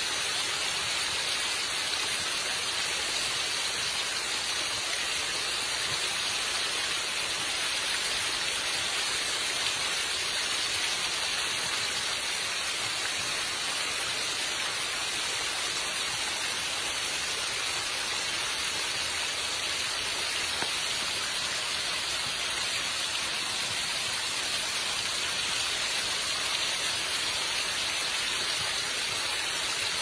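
Small waterfall spilling in thin streams over layered rock ledges: a steady, even splashing hiss of falling water.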